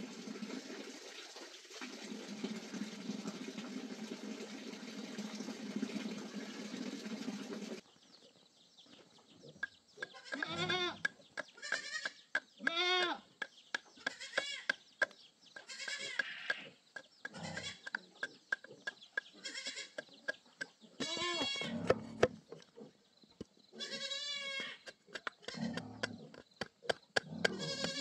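A steady rushing noise cuts off abruptly about eight seconds in. After that an animal calls over and over, a dozen or so short, wavering cries, some with a quavering tremble, mixed with light clicks and knocks.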